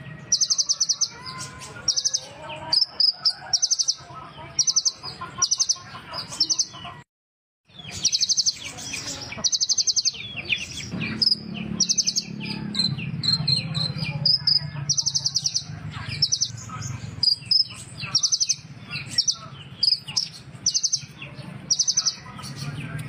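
Sunbird (the 'kolibri ninja' of Indonesian bird-keepers) singing: short, fast, high-pitched trills repeated roughly once a second, with quicker chirps between them. The sound drops out for a moment about seven seconds in.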